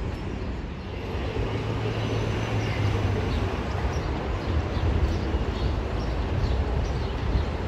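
New York City subway train of R142-family cars running on an elevated steel line: a steady low rumble, with faint regular clicking over the second half.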